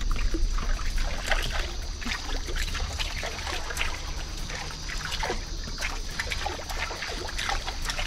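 Balam 245 jointed swimbait being reeled across the surface, its wake splashing and trickling in quick irregular bursts.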